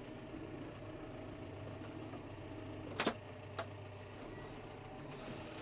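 An engine running steadily at idle, with a sharp knock about three seconds in and a lighter one just after.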